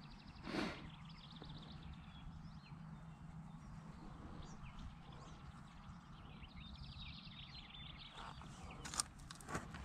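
Quiet field ambience with faint, quick bird chirps in two spells, a short rustle about half a second in, and a few sharp clicks near the end.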